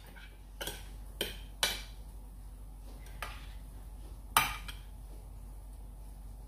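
Metal spoon clinking and scraping against a glass baking dish while tossing a chopped vegetable salad: about five light clinks at uneven spacing, the loudest about four and a half seconds in.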